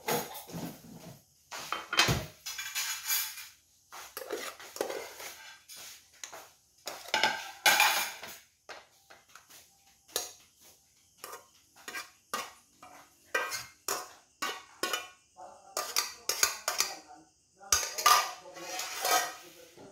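Metal spoon scraping and clinking against a metal cooking pot and ceramic bowls as food is dished out, in irregular clinks and scrapes. A dull knock about two seconds in and another near the end.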